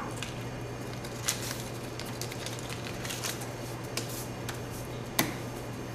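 Soft rustles and light taps of paper money being handled on a bar counter, with a sharper knock about five seconds in, over a steady low hum.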